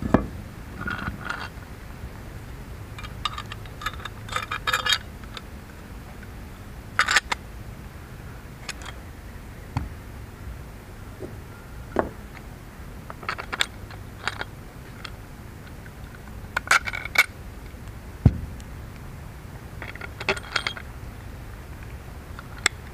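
Aluminum spacer plate and metal mounting hardware being handled and fitted: scattered sharp clinks, taps and scrapes, several with a short metallic ring.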